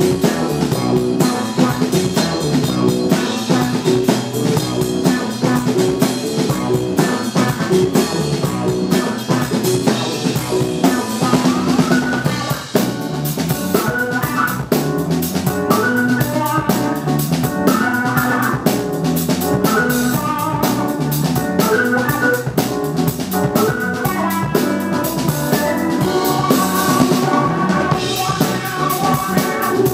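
A live rock band playing an instrumental number: electric guitar, keyboard, bass guitar and a drum kit keeping a steady beat.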